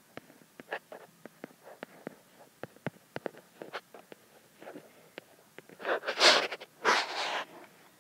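Faint, scattered ticks and taps of a stylus on a tablet's glass screen during handwriting, then two louder breathy rushes of noise about six and seven seconds in.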